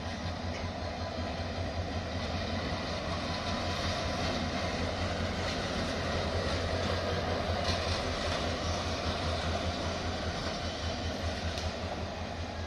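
Diesel locomotive engine running with a steady low drone, growing a little louder toward the middle and easing again near the end.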